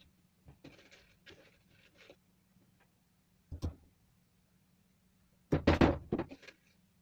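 Hammer knocking on a thin wooden strip laid on a wooden board: a single knock about three and a half seconds in, then a quick run of several harder blows near the end. Light handling of the wood comes before.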